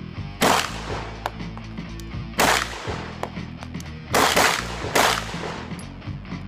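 Sig Sauer M11-A1 9mm pistol fired in a slow string of about four shots, the last two closer together, each a sharp crack with a short echo, over background music.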